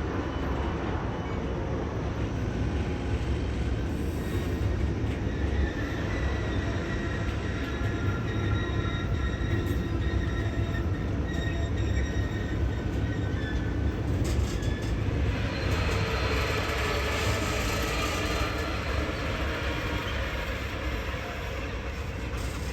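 Freight train rolling on harbour tracks: a steady low rumble with thin, high wheel squeals, and a louder hissing, grinding stretch partway through.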